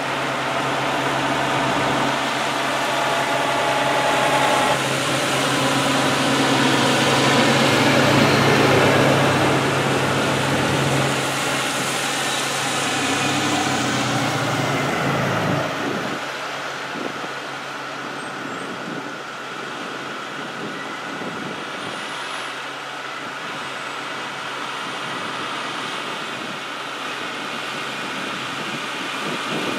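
A line of heavy tow trucks driving slowly past close by, their diesel engines running. The sound is loudest about eight seconds in as a big truck passes, then drops a little past halfway to the quieter, steady sound of the trucks further back.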